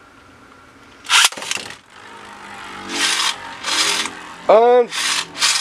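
A Beyblade Burst top is ripped from its launcher into a plastic stadium, a sharp whir and clack about a second in. It then spins across the plastic bay floor with a scraping hiss that swells and fades in repeated sweeps as it travels around the bowl.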